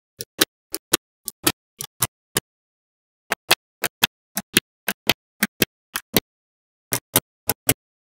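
Small magnetic balls clicking as they snap onto one another, one at a time. About two dozen sharp clicks come in an uneven run of two to four a second, with a pause of about a second near the middle.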